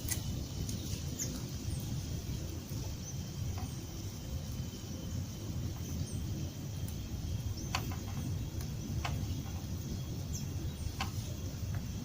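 Outdoor background noise: a steady low rumble, with a faint high insect drone and a few short chirps or clicks scattered through it.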